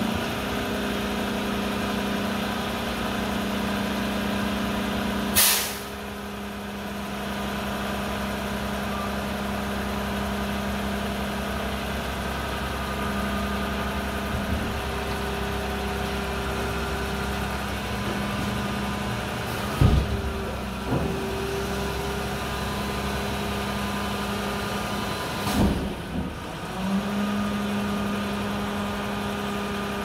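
Mack garbage truck's diesel engine idling steadily, with a short burst of air hiss about five seconds in and a few sharp knocks later on.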